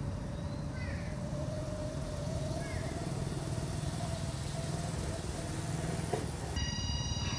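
Outdoor background with a steady low rumble and a faint distant engine drone, plus a few brief faint chirps. About six and a half seconds in the background changes abruptly, and a steady high-pitched whine sets in.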